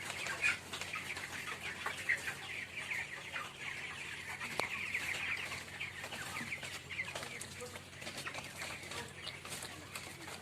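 A flock of 20-day-old poultry chickens calling, with many short chirps and clucks overlapping throughout. A few sharp knocks stand out.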